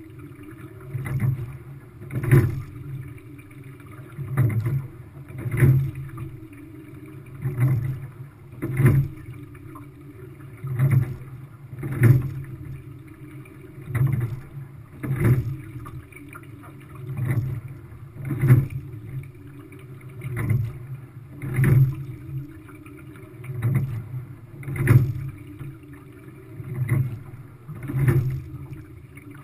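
Quad sculling boat being rowed at a steady pace, a stroke about every three seconds, with two sharp knocks each stroke as the oars turn in the oarlocks. A low rush of water runs along the hull underneath.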